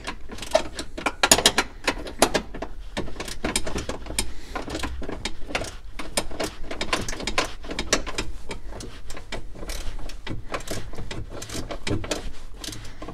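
Nuts being tightened onto threaded studs through a metal battery retainer bracket with a hand tool: a long run of irregular metallic clicks, clinks and small knocks.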